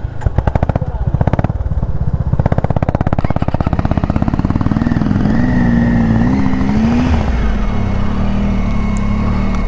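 Motorcycle engine running, a fast, even beat of firing pulses throughout.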